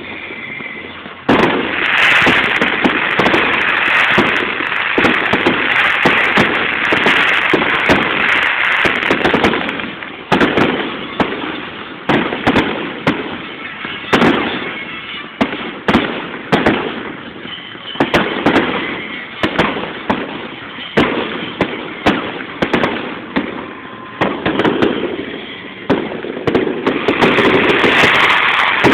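Fireworks display going off: a dense run of crackling and bangs for the first third, then separate booms every second or so, building to another dense volley near the end.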